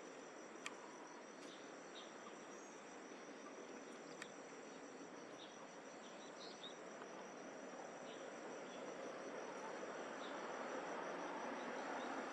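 Faint, steady high-pitched trilling of insects, with a few short faint chirps and clicks scattered through. A broad rushing noise grows louder toward the end.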